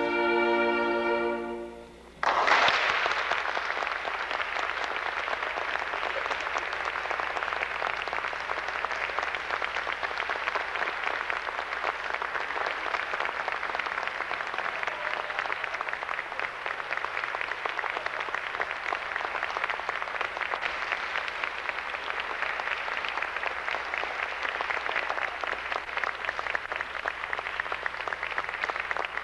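A piece for soprano and small string ensemble ends on a held chord that fades out about two seconds in. Audience applause starts at once and goes on steadily after that.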